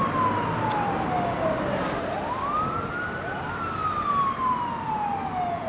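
A siren wailing: its pitch sweeps up quickly, then slides slowly down, cycling about every three seconds.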